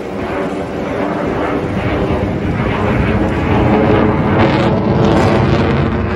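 Jet noise from a Sukhoi Su-30MKI fighter flying overhead: a loud, rushing engine roar that grows steadily louder.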